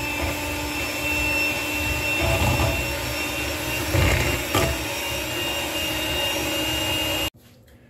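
Electric hand mixer running steadily, its beaters whipping a batter of butter, sugar, eggs and vanilla in a glass bowl, with a couple of sharp clicks about four seconds in. It cuts off abruptly near the end.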